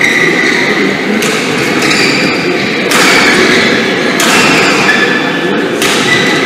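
Ambience of a large badminton hall: a steady hubbub with short squeaks and about four sharp knocks, echoing in the hall.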